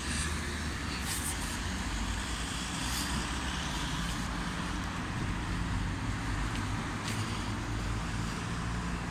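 Steady hum of car traffic on a city street.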